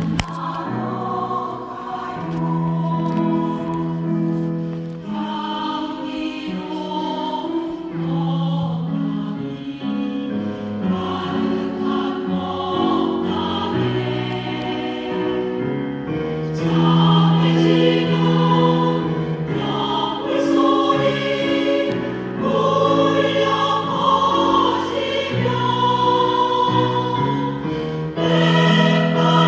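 Choir singing a Korean Buddhist hymn in sustained phrases with long held notes, getting louder about halfway through.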